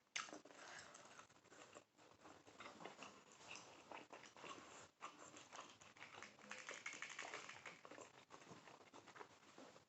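Faint chewing and mouth sounds of someone eating a birria taco, a string of small irregular wet clicks and smacks.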